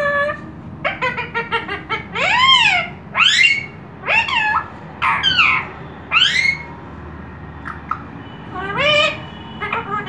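Indian ringneck parakeet calling: a quick run of short notes, then a string of loud calls that rise and fall in pitch, about one a second. After a pause there is one more call near the end.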